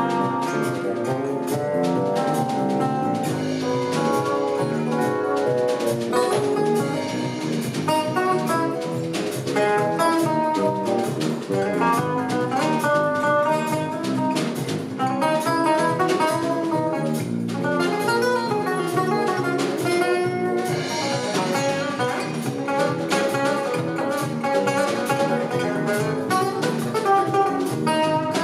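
Live jazz band playing an instrumental passage: plucked string notes carry a melody over drums, with no singing.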